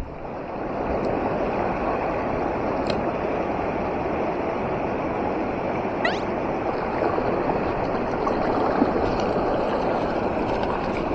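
River water rushing steadily over a streambed. A brief rising chirp cuts through about six seconds in.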